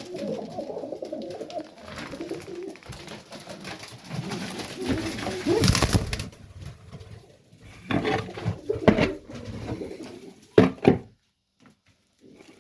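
Pigeons cooing in a loft, with a louder rustle or flutter near the middle and two sharp knocks about ten and a half seconds in; the sound cuts away shortly after.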